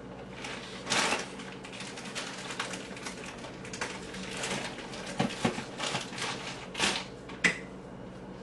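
Rummaging in a kitchen cabinet: jars, bottles and packets being shifted about, giving irregular knocks and clatters, with a few sharper knocks about five and seven seconds in.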